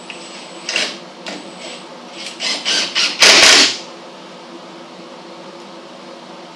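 Power drill driving screws into the tailgate hinges: a few short trigger bursts, then one longer, louder run about three seconds in, over a steady hum.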